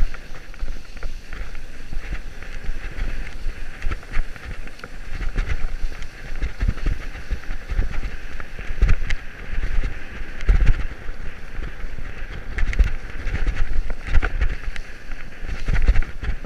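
Mountain bike descending a dirt forest singletrack, heard from a handlebar-mounted camera: a steady rush of tyres and wind buffeting, with irregular knocks and rattles as the bike jolts over bumps.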